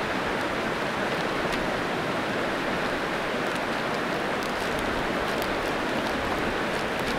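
Steady rushing of creek water, even and unbroken, with a few faint crinkles from a plastic zip-top bag of dough being squeezed by hand.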